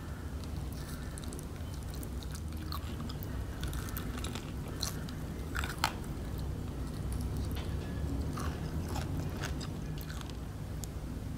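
Close-miked chewing and biting of crispy fried chicken, the breading crunching and crackling irregularly, with one louder crack about halfway through.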